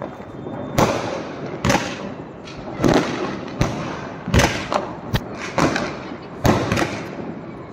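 DOM Fireworks 40-shot skyshot cake firing: a sharp thump about every second as each shot launches from its tube, each with a short trailing hiss.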